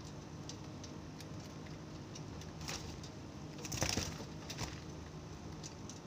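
Caged zebra dove shifting on its perch: a short rustle about four seconds in, with a smaller one before it, over a faint steady hum and light ticks.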